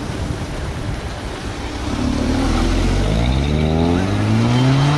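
Car engine accelerating hard, its pitch climbing steadily through the second half after a couple of seconds of rushing noise.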